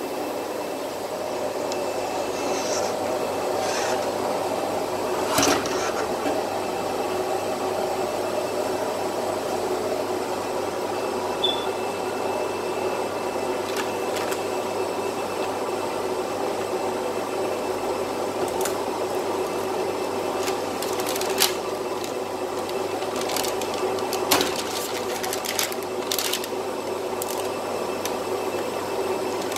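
Steady mechanical hum of a UV flatbed printer. Scattered sharp clicks and crackles, more of them in the last third, come from the protective paper film being peeled off a printed acrylic sheet.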